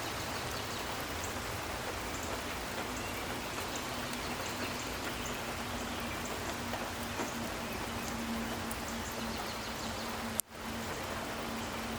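Steady rain falling, with scattered drops pattering on surfaces. About ten seconds in there is a sharp click and the sound cuts out for a moment before the rain returns.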